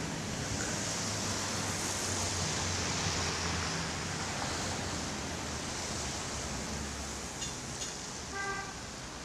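Steady urban night ambience: traffic noise with a low rumble under an even hiss. Near the end come two quick clicks, like a cigarette lighter being struck, and then a short horn toot.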